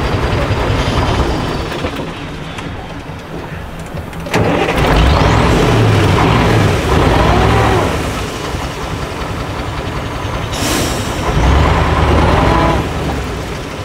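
Diesel engine of a 6x6 trial truck labouring under heavy load as it climbs out of a deep rut, running low at first, then revved hard twice, about four seconds in and again near ten seconds in. A short hiss opens the second burst of revs.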